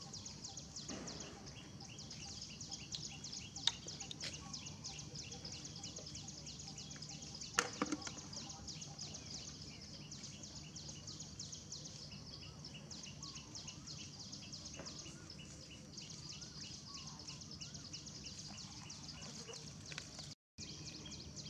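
Outdoor ambience: a fast, high-pitched chirring pulse that repeats many times a second and weakens about halfway through, over a low steady hum. There are two sharp knocks, about four and eight seconds in.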